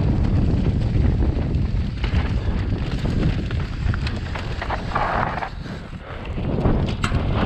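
Wind buffeting the microphone and a mountain bike rattling down a dirt singletrack at speed, tyres rumbling over the ground with scattered clicks and knocks from the bike, and a brief hiss about five seconds in.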